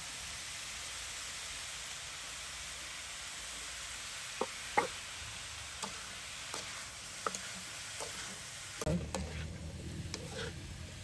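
Beef sizzling in a steel wok as it is stir-fried, a metal ladle now and then clicking and scraping against the pan. Near the end the stirring gets busier, with more frequent scrapes.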